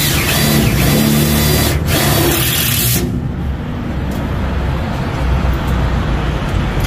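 Cordless drill driving a screw into galvanized steel framing, in two runs with a short break near the two-second mark, stopping about three seconds in. A low steady rumble continues after it.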